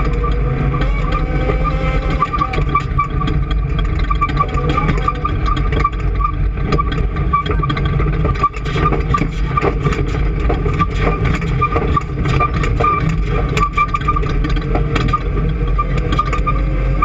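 A vehicle engine running steadily at constant speed: a low drone with a steady high whine over it, and a brief dip in level about halfway through.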